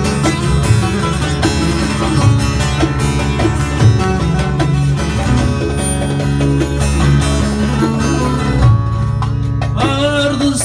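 Amplified bağlama (saz) playing a plucked instrumental passage of a Turkish folk song over a steady low backing. A man's singing voice comes in near the end.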